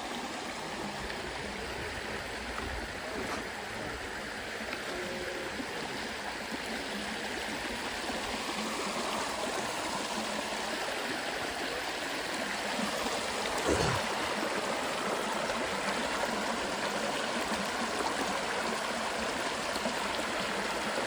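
A small brook running, a steady rush of flowing water, with a brief thump about two-thirds of the way through.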